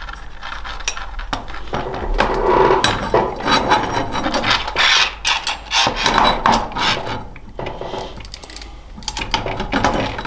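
Small countersunk bolts and nuts being tightened on a steel bracket with a screwdriver and a socket: irregular scraping, rubbing and clicking of metal tools and parts.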